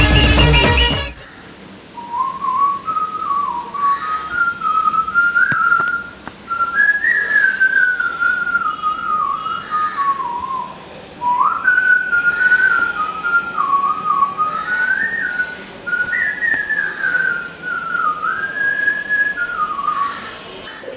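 Music cuts off about a second in. A man then whistles a melody, a single clear tone gliding up and down in several phrases with short breaks between them.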